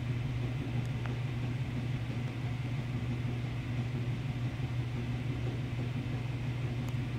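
Steady low hum with an even background hiss, and a couple of faint ticks about a second in.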